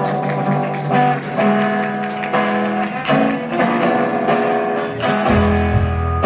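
Guitar strumming chords in a live band's song intro, each chord ringing on. Deep bass notes come in about five seconds in.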